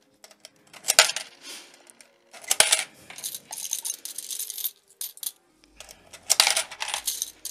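Quarters dropped by hand, a few at a time, into a clear plastic digital coin-counting piggy bank, clinking and rattling as they fall through the slot. Coins also clink against each other as they are picked from a pile on a plate. The clinks come in bunches: one about a second in, a longer run in the middle, and another near the end.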